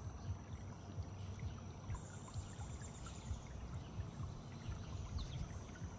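Water trickling and lapping with small irregular splashes, over a faint steady high-pitched tone.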